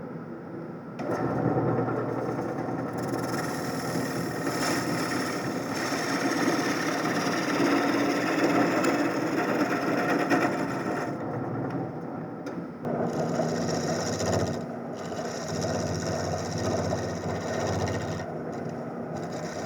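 Wood lathe running while a gouge cuts a glued-up mahogany blank, a continuous rough cutting noise. It starts about a second in, eases briefly about eleven seconds in and then picks up again.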